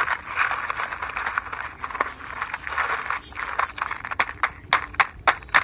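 Small stones clicking and scraping as they are loaded by hand into a plastic toy truck's bed, with a string of sharper separate knocks near the end.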